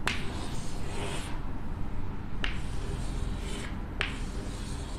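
Chalk drawing curved lines on a blackboard: faint scratchy strokes with sharp taps of the chalk on the board, one at the start and one about two and a half seconds in.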